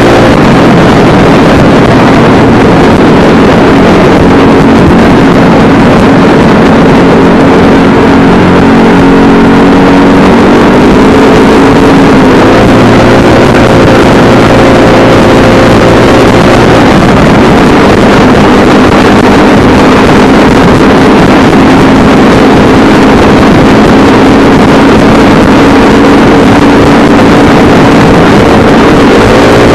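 Loud mini motorcycle engine running as the bike cruises down the road, with wind rushing over the microphone. The engine note climbs about eleven seconds in, drops back around seventeen seconds, and climbs again near the end.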